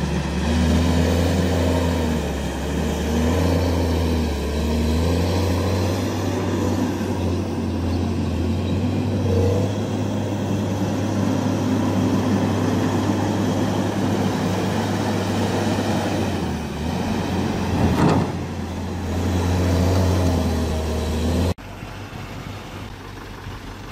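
Heavy diesel engine of a Case 850K crawler dozer running hard while pushing dirt, its note rising and falling, with one sharp metallic clank late on. It cuts off abruptly near the end, giving way to a quieter engine.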